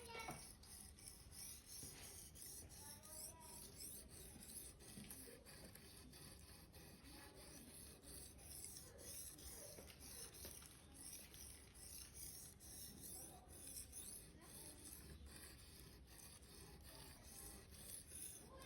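Faint repeated rubbing strokes of a Victorinox knife blade being sharpened.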